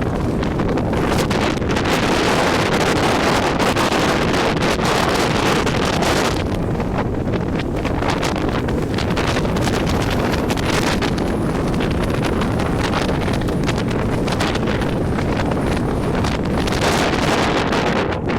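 Gale-force wind buffeting the microphone: a loud, dense rush, heaviest in the low end, that swells and eases in gusts.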